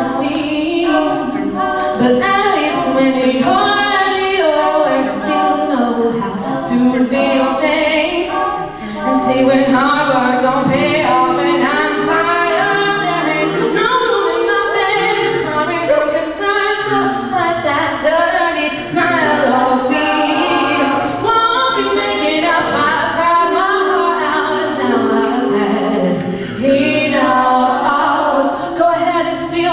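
A cappella group singing, with a female lead voice on a handheld microphone over the group's backing vocals and no instruments.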